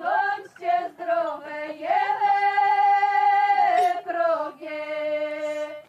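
Slow unaccompanied singing, a folk-style vocal line of long held notes that glide between pitches.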